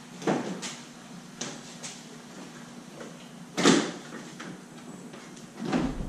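Hard clunks and lighter clicks from hands working at the rear of a Jeep Wrangler's body, pulling off tailgate-cover clips. The loudest clunk comes a little past halfway, with another near the end.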